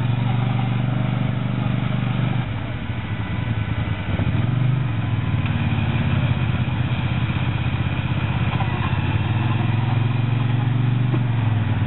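ATV engine running under load as the quad is driven through rough, muddy ground. It eases off a couple of seconds in and picks up again about four seconds in.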